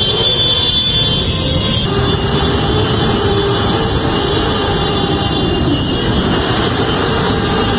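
Many motorcycle engines running together as a large column of bikes rides slowly past, a loud, steady, dense drone. The sound changes character about two seconds in.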